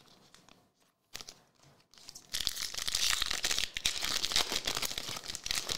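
Cards being handled quietly, then, about two seconds in, the foil wrapper of a 2023 Select AFL Legacy trading-card pack torn open and crinkled for about three seconds. The crinkling stops abruptly near the end.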